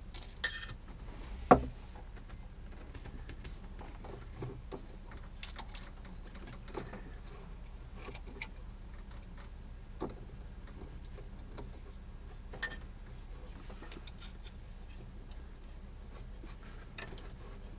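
Screwdrivers clicking, tapping and scraping on the metal parts of a marine generator, scattered light ticks with one sharper knock about a second and a half in.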